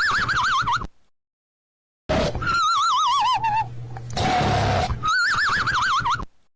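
Cartoon-style snore: a rasping snore on the in-breath, then a warbling whistle on the out-breath. It comes twice, looped, with a sudden gap of dead silence between cycles.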